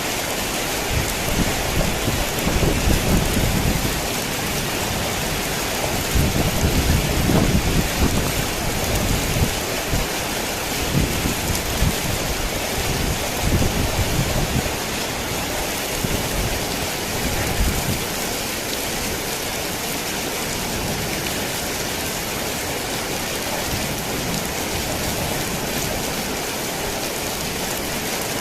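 Heavy rain falling steadily on a tin roof, with thunder rumbling and rolling in uneven surges from about a second in until about eighteen seconds in, after which only the rain continues.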